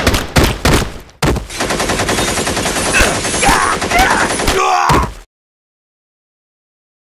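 Automatic rifle fire from several guns at once, rapid overlapping shots with a short break about a second in, then more firing that cuts off abruptly about five seconds in.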